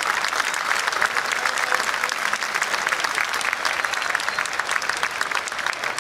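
Crowd in stadium stands applauding, a dense steady clapping.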